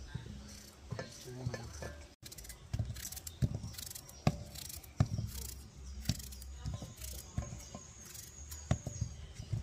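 Knife dicing a pumpkin on a board: a string of sharp, irregular knocks as the blade cuts through and strikes the board.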